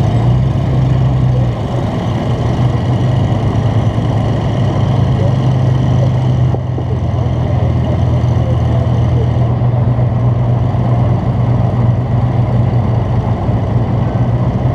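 FV432 armoured personnel carrier's engine idling, a loud, steady low drone.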